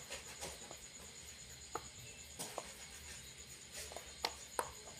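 Faint, scattered clicks and taps of a knife scraping papaya seeds out of the halved fruit, with seeds dropping onto a plate.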